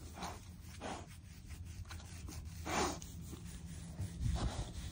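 A hand rubbing and stroking a black pig's coarse, bristly coat, making short scratchy rustles, with brief breathy snuffles from the pig. There are a handful of separate bursts, and the loudest comes just past halfway.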